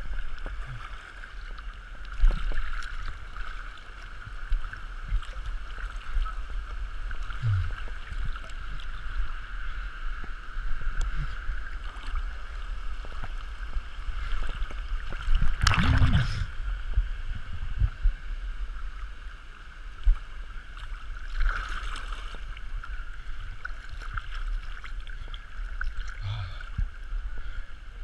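Stream water sloshing and lapping against a camera riding at the water's surface as it drifts with the current, with small splashes throughout and one louder splash about halfway through.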